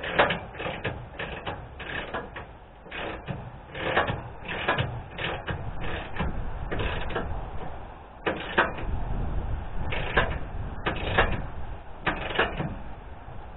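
Ratchet wrench clicking in short back-and-forth strokes, irregular bursts of clicks a few times a second with brief pauses, as a bolt at the top of a new aluminium radiator is tightened.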